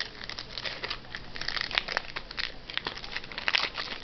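Crinkling and rustling of trading-card packs and cards being handled, with irregular sharp rustles throughout.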